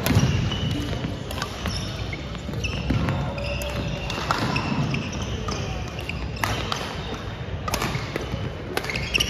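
Badminton rally in a gym: rackets hitting the shuttlecock with a string of sharp cracks every second or so, sneakers squeaking on the wooden court floor, and voices from around the hall.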